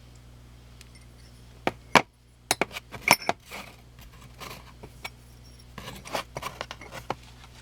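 Titanium knife scales clinking and clicking as they are handled, with a sharp click about two seconds in and a quick cluster of clinks just after, then softer handling noise and small clicks.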